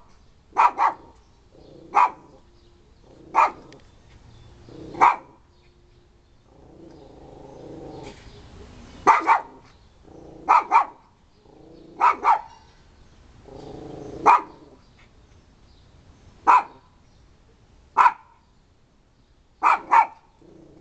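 Small long-haired dog barking sharply, single and double barks every second or two, with a low growl building up into the barks twice.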